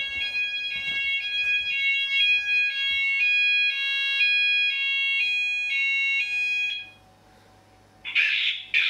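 Addressable fire alarm voice sounder playing its alert tone, a repeating two-tone pattern about once a second, set off to run its test message. The tone stops about seven seconds in, and near the end the sounder starts again, louder and rougher, as its recorded test message begins.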